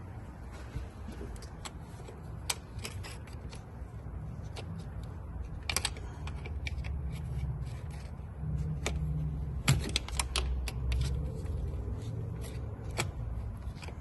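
Irregular light clicks and clatter of hands working on a car, with a few sharper taps around the middle, over a low steady hum.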